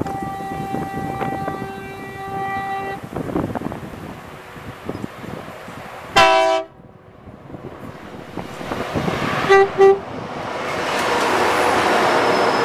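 Locomotive horn of an approaching coal train: a long faint chord, then one loud short blast about six seconds in and two quick toots near ten seconds. The rumble of the locomotives grows louder as they draw level and pass.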